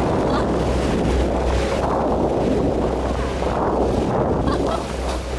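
Wind buffeting the microphone on a moving boat, over a steady low engine drone and water rushing along the hull.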